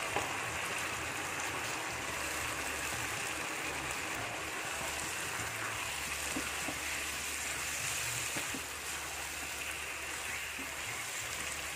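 Chicken pieces sizzling and simmering in a wok of fried spice paste and a little water: a steady hiss. A few light knocks of a utensil against the pan come a little past the middle.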